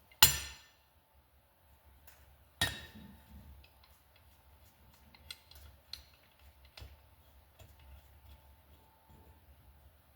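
Metal tools clanking on a motorcycle cylinder head while a valve spring compressor is set onto a valve: two sharp metallic clanks that ring briefly, about two and a half seconds apart, then a few light ticks.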